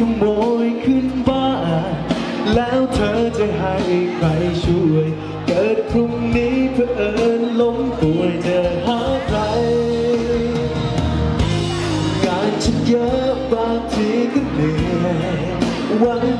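A man singing a Thai pop ballad live into a handheld microphone, over a pop accompaniment with a steady beat.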